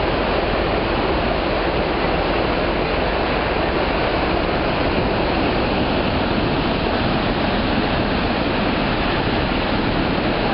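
Steady rushing of a swollen, flooded river's water, an even noise that holds level throughout.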